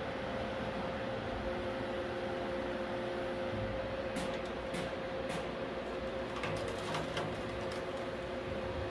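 Vortex catalytic-converter guillotine running with a steady machine hum as its blade comes down on a converter. About four seconds in come a few sharp clicks, then a quick cluster of cracks, as the blade bites into the converter's steel shell.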